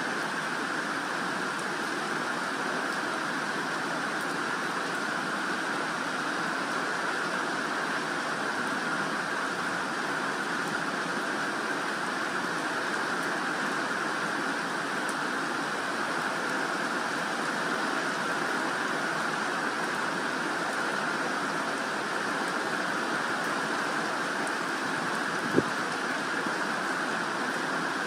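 Steady rain falling on garden leaves and grass, an even hiss that holds constant. A single sharp tap stands out near the end.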